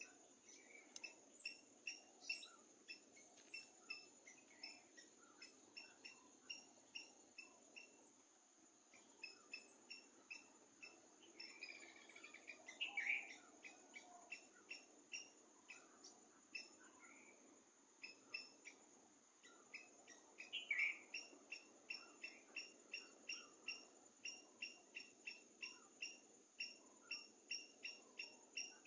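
Faint forest ambience of insects and birds: a short high chirp repeating about twice a second over a steady high insect drone, with two louder bird calls, one about halfway through and one about two-thirds of the way in.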